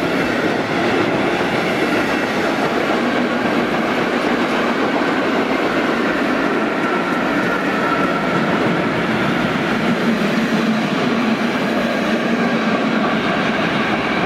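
Passenger coaches of a steam-hauled train rolling past close by, a steady loud rumble of wheels running over the rails.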